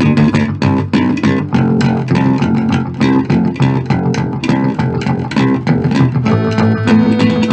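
Instrumental jam with a plucked bass line and guitar, playing quick, evenly repeated notes.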